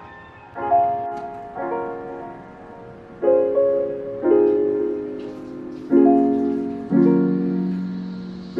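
Background music: slow piano chords, a new one struck about every second, each ringing out and fading.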